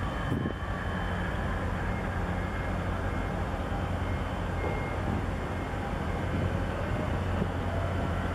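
A steady low engine drone with an even hiss over it.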